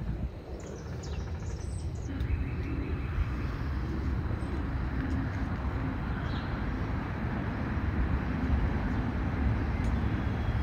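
Outdoor ambience: birds chirping a few times in the first couple of seconds and once near the middle, over a steady rumble of road vehicle noise that grows gradually louder.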